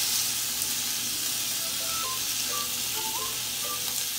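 Oiled shrimp skewers sizzling on the hot plate of a George Foreman electric contact grill: a steady frying hiss.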